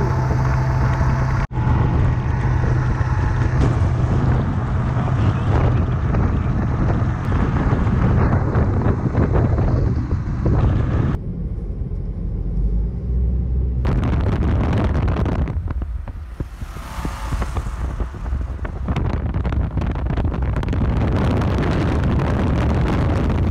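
Motorcycle engine running while riding, with wind rushing over the microphone. The sound changes abruptly a few times, about a second and a half in and again around the middle.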